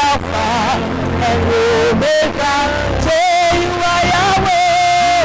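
Music with singing: long held, slightly wavering notes over a steady bass accompaniment.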